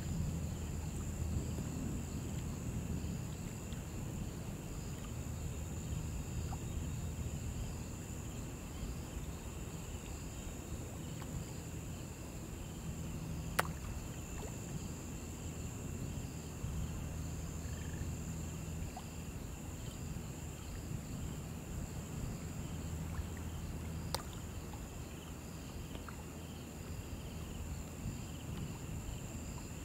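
Shallow river water flowing, under a steady high-pitched drone of insects. Two sharp clicks come through, one about halfway in and one about three quarters of the way in.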